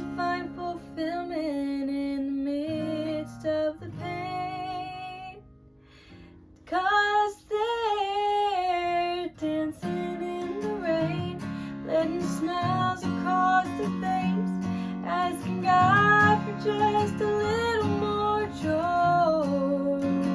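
Music: acoustic guitar strumming with a woman singing, briefly dropping quieter about five seconds in.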